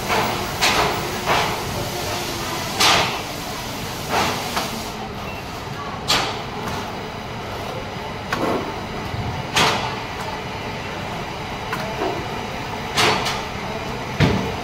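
Irregular sharp clicks and knocks, about ten of them, from the frame and parts of a 55-inch LED TV panel being handled, over a steady machinery hum.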